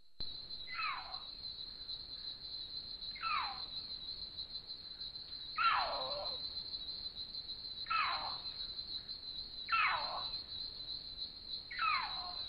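Female Florida panther caterwauling: six short yowls about two seconds apart, each sliding down in pitch, the third the loudest and longest. The yowling is her call to males that she is ready to mate.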